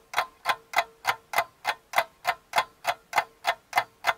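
Clock ticking, an even tick about three times a second, with a faint steady tone underneath: a waiting-time ticking clock.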